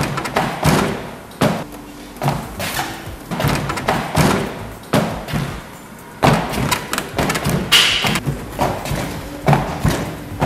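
Sandalled feet thumping on a moving treadmill belt in an irregular stride, about two to three thuds a second.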